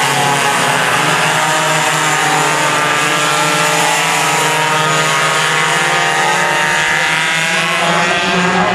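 Several racing kart engines running together on the track, a steady, overlapping drone of engine notes that drift slightly up and down in pitch.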